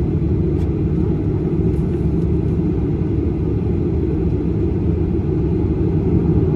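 Steady low rumble inside the passenger cabin of a Boeing 737-800 airliner, from its CFM56 turbofan engines and the airframe.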